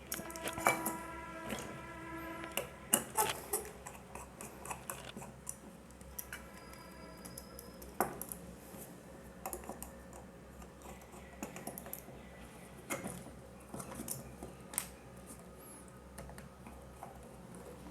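Small irregular clicks and taps of a screwdriver and wire ends being worked into the screw terminals of a plastic mains plug.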